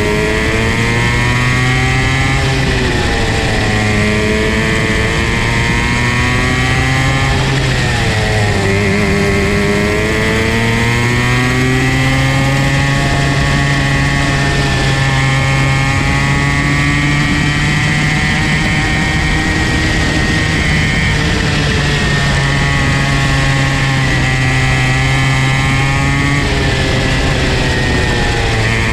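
Comer C50 50cc two-stroke kart engine running hard on track, its pitch dropping several times as it comes off the throttle and climbing again under acceleration, with a long steady climb in the middle.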